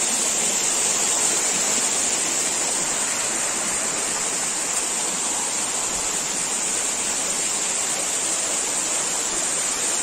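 A waterfall in heavy rainy-season flow pouring over rock: a steady, even rushing of falling water.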